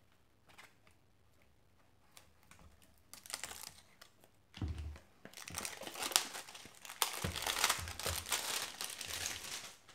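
Cellophane wrap being slit with a knife and peeled off a small box: crinkling and crackling that starts about three seconds in, with a few sharp clicks.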